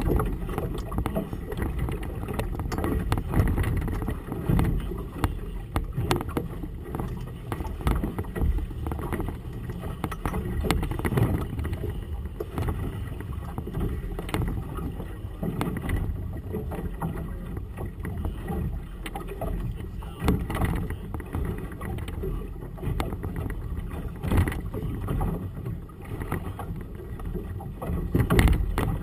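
Gusty wind rumbling on the microphone of a boat on choppy water, with waves knocking and slapping against the hull.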